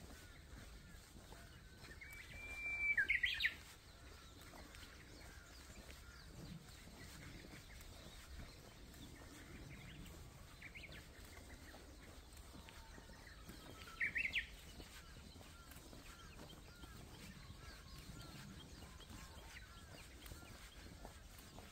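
Wild birds calling: a loud call about three seconds in, a held note that breaks into a quick upward sweep, and a second short call of a few rapid notes about fourteen seconds in, with faint scattered chirps between.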